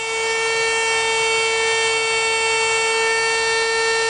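DeWalt DWP611 compact router running at full speed with a steady high whine, making a light climb cut of a shallow rabbet around the edge of a veneered round tabletop.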